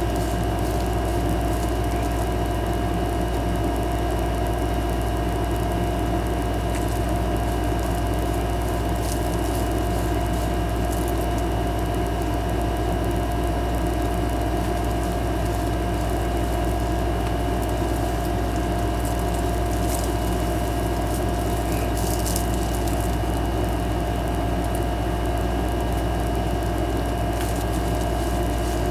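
A loud, steady mechanical hum with a constant whining tone in it, unchanging, and a few faint ticks.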